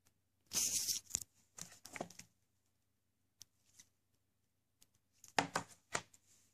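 Plastic DVD case being handled: it is lifted and turned over, then laid back down on the plastic-covered table. There is a rustling scrape with clicks about half a second in, and a quick run of clicks and taps about five seconds in.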